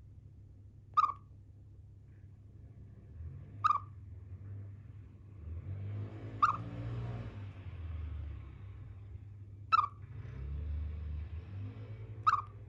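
Pet Siberian chipmunk chirping: five short, sharp single chirps, about one every three seconds. A low rumbling noise runs under the middle of the chirping.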